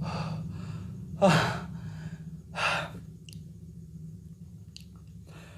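A person breathing out hard three times in the first three seconds; the second breath is the loudest, a heavy sigh falling in pitch. The eater is struggling through a large bowl of spicy instant noodles. Two faint light clicks follow, over a steady low hum.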